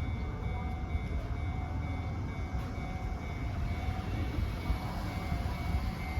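Chichibu Railway train running past at a level crossing: a steady low rumble of the train on the rails, with two high, even tones from the crossing signal sounding over it.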